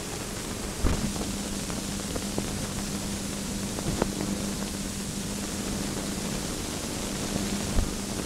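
Steady hiss and a low steady hum from an old 1930s film soundtrack, broken by three short clicks, about a second in, about four seconds in and near the end.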